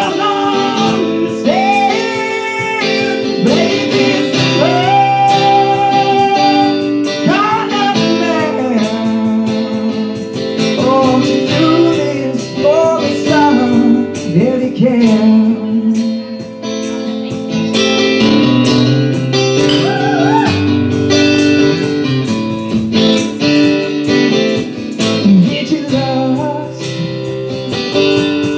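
A man singing live into a microphone, accompanying himself on an acoustic guitar.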